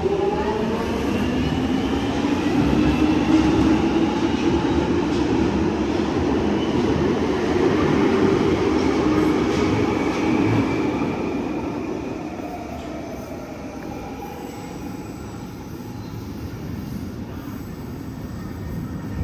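London Underground 1996 Stock train pulling away, its traction motors whining in several tones that rise in pitch as it speeds up over a steady rumble. After about eleven seconds the sound falls away as the train recedes.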